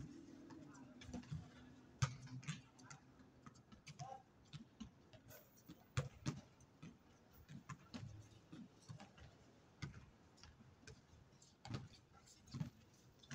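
Outdoor basketball pickup game: scattered, irregular thuds and taps of the ball and players' shoes on the court, with faint players' voices.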